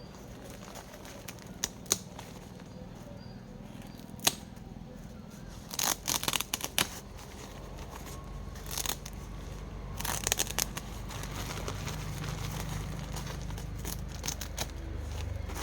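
Jute gunny-sack packaging being cut and torn open, with scattered snips, rips and rustles coming in short irregular bursts.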